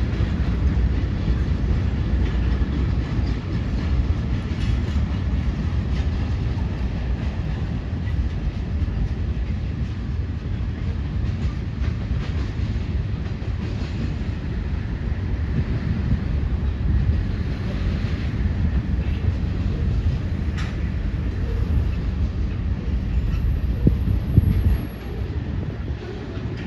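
A CSX freight train rolling past, a steady low rumble of cars on the rails.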